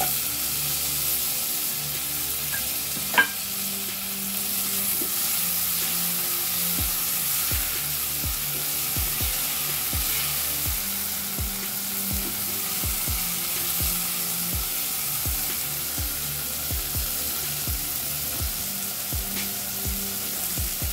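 Tomato pieces and chilli spice paste sizzling in hot oil in a ceramic-coated pot, stirred with a spatula. A steady sizzle with a single knock about three seconds in, then from about seven seconds in a run of short spatula strokes against the pot.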